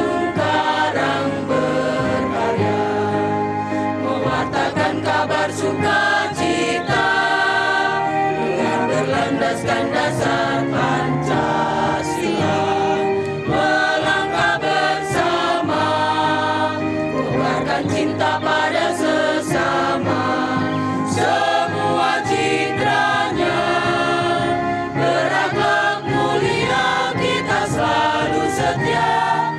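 Mixed choir of women's and men's voices singing continuously.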